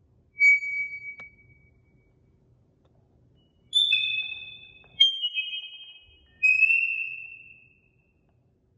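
Small handheld metal chimes struck four times, each giving a high clear ringing tone that fades over a second or two. The first strike comes about half a second in and three more follow from about four seconds in, each at a different pitch.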